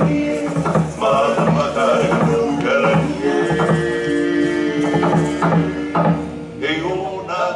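Hawaiian chant sung with long held notes over steady drum beats, the traditional chant-and-drum accompaniment of an ancient-style hula.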